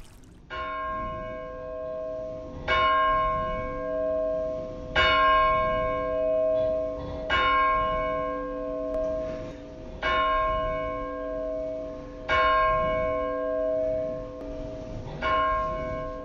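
A single church bell tolling slowly, seven strikes about two and a half seconds apart, each ringing on and fading into the next.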